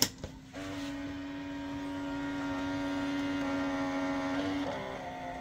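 A click as the cassette door of a Kodak Kodavision 8mm camcorder is pressed shut, then the tape mechanism's motor whirs steadily for about four seconds and stops, loading the 8mm tape for playback.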